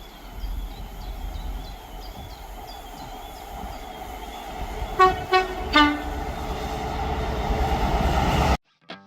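Two-tone train horn giving three short toots about five seconds in, the first two on the higher note and the third on the lower, over the steady rumble of a train that grows louder until the sound cuts off suddenly near the end.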